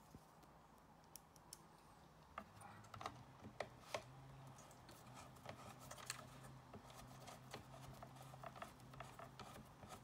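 Faint, scattered clicks and ticks of a hand screwdriver driving a screw back into a circuit board's mounting hole in a battery-charger case. A faint low steady hum sits underneath from about two seconds in.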